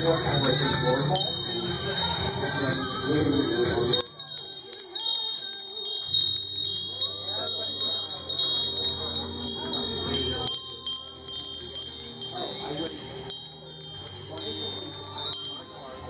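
Small metal tube wind chimes tinkling as they are brushed by hand, many high ringing notes striking and overlapping.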